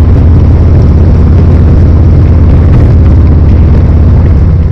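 Harley-Davidson Milwaukee-Eight V-twin on a 2020 Road Glide Special running steadily under way, its exhaust note coming through 4.5-inch Magnaflow Hitman slip-on mufflers. The sound is loud and deep, holding level without clear revving.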